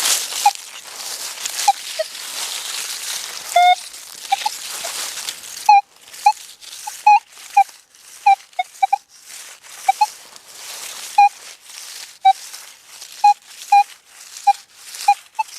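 Minelab Manticore metal detector giving many short, irregular mid-pitched beeps as its coil sweeps over iron-laden ground. These are junk signals that fall outside the operator's set discrimination window. A rustling hiss runs under the first six seconds, then stops abruptly.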